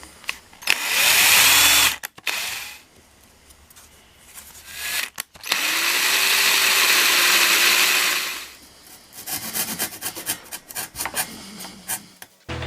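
Power drill running in two bursts, a short one of about a second and a longer one of about three seconds, then a string of clicks and knocks near the end.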